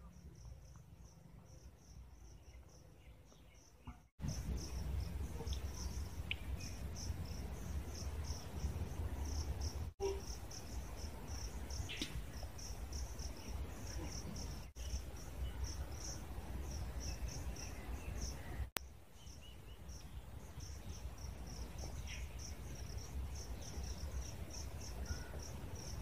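Crickets chirping: a steady run of short, high chirps, several a second, over a low rumble. The sound drops out for an instant a few times.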